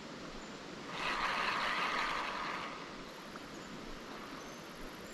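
Steady rush of flowing river water, with a louder rushing hiss for about two seconds starting about a second in.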